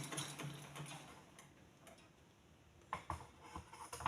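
Butterfly treadle sewing machine running unthreaded, a steady whirr with fine ticking that dies away over the first second as the pedalling stops. A few light separate clicks follow near the end.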